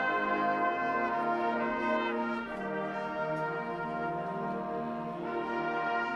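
Marching band brass section playing sustained chords, easing off a little about two and a half seconds in and swelling back up near the end.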